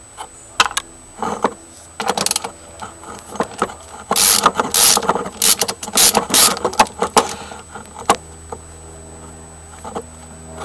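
Socket wrench turning rusty nuts on a steel sidecar chassis clamp: a run of sharp metal clicks and scrapes, busiest in the middle. The nuts have been freed of rust by electrolysis and are coming undone.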